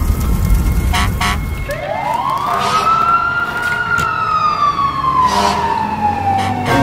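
A siren wailing: one slow rise in pitch about two seconds in, then a long, gradual fall.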